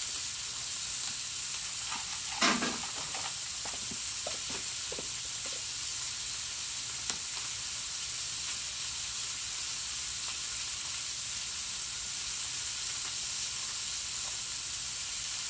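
Chuck steaks with butter sizzling steadily on an ultra-thick griddle over a Weber kettle grill.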